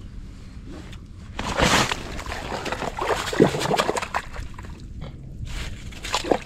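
Water splashing and sloshing in an ice-fishing hole as a hooked whitefish is hauled up through it, in irregular bursts from about a second and a half in, with a few sharper splashes near the end.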